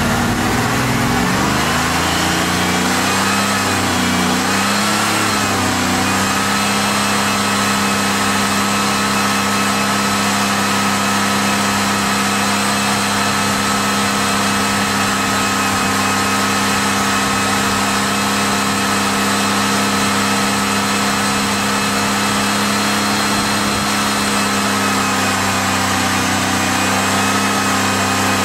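Pontiac Firebird engine, treated with an oil conditioner and being run to see whether it will fail, held at raised RPM. Its pitch wavers up and down for the first several seconds, then settles into a steady fast idle.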